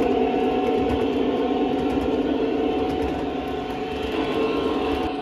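O gauge three-rail model freight train running past at steady speed: the wheels rolling on the track and the locomotive's motors make a continuous running sound that eases slightly near the end.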